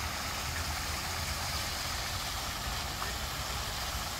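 Steady splashing of a fountain's water jet falling into its stone basin, with a low steady rumble underneath.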